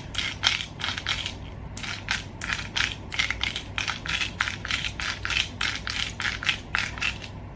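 Twist-top spice grinder grinding dried garlic: a quick, even run of gritty rasps, about three to four a second, as the grinder head is twisted back and forth.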